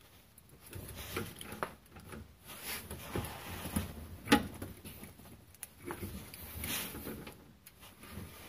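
Ratchet and torque wrench working on the rear strut's lower mounting bolt as it is tightened to 81 lb ft: scattered light clicks and knocks, with one sharp metallic click about four seconds in.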